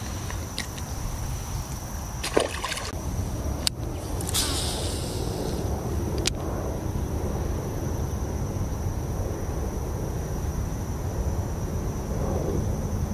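Water sounds and handling noise as a small largemouth bass is unhooked and let go from a boat: a sharp knock about two seconds in, a brief splash soon after, then water sloshing against the hull under a steady low rumble.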